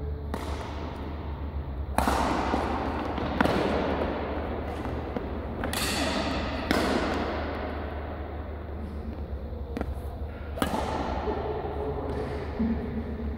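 Badminton rackets smacking a shuttlecock during a rally: a string of sharp hits a second or two apart, each echoing in a large sports hall, over a steady low hum.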